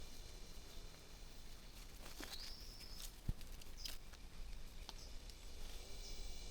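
Faint outdoor ambience: a steady high insect hum with a few short bird chirps and a brief whistled call, and a single dull knock a little over three seconds in.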